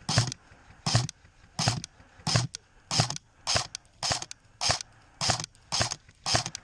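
Footsteps of a person walking steadily on rough outdoor ground, about three steps every two seconds, each a short scraping crunch.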